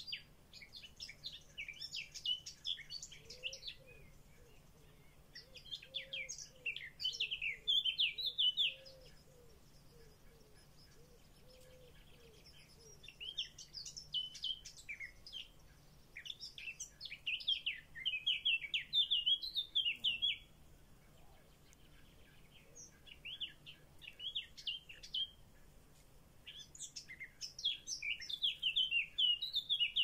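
Eurasian blackbird nestlings begging: bursts of rapid, high-pitched cheeping, each lasting a few seconds and recurring every few seconds, loudest near the end as the chicks are fed.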